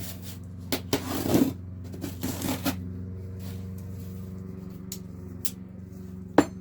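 Rustling and clicking of packaging and parts being handled, in a few short bouts with a sharp click near the end, over a steady low hum.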